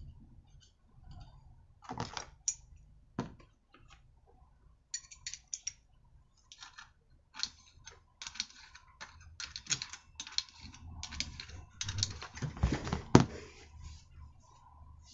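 Light metal clicks and rattles from a petrol brushcutter's centrifugal clutch being fitted onto the flywheel and its bolts started with a hand tool. The clicks come in irregular clusters, busiest and loudest in the last few seconds, with one sharp knock near the end.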